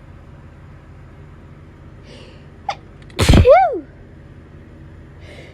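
A person sneezing once, loudly, as part of an autumn allergy sneezing fit. A sharp breath in comes just before the sneeze, about three seconds in. The sneeze's voiced cry rises and then falls in pitch.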